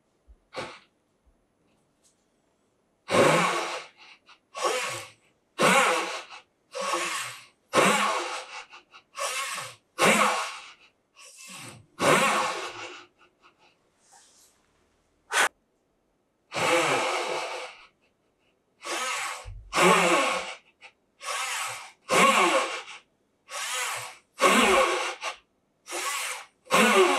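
Japanese dozuki pull saw rasping through a small hardwood stick in steady strokes of about one a second, in two separate cuts with a pause and a single click between them. One cut is made with a used, dull blade and the other with a new, sharp blade.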